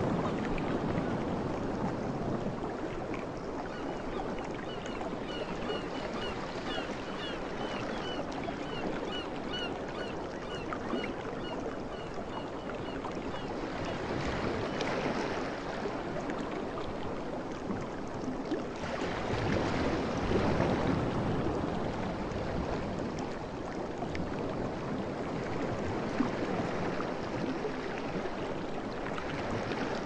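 Sea waves washing onto a shore, a steady rush of surf that swells twice in the middle. A small bird chirps about twice a second for several seconds in the first half.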